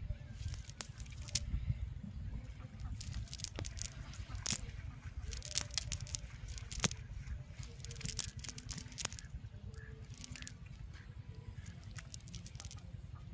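Cast net being handled and shaken on grass: the nylon mesh rustling and crackling over leaves, with scattered sharp clicks as its lead sinkers knock together.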